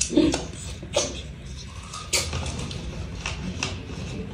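Close-up eating sounds of roast chicken being eaten by hand: wet lip smacks, chewing and finger sucking, heard as a handful of short, sharp smacks at irregular intervals.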